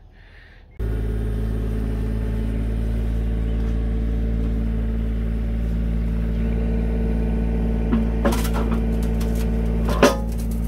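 Yanmar mini excavator's diesel engine idling steadily, cutting in suddenly about a second in. A few sharp metal clanks come near the end, the loudest about ten seconds in, as the hitch nears the bucket.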